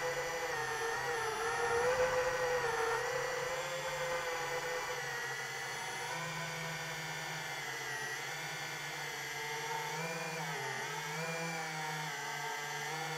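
FPV quadcopter's electric motors and propellers whining steadily, the pitch wavering up and down as the throttle changes, with a brief dip in pitch about ten seconds in.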